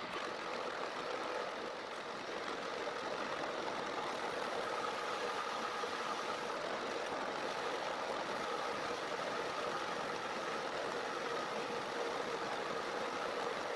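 Metal lathe running steadily while a grooving tool cuts a groove into the spinning metal shaft: a continuous machining noise with a faint steady whine.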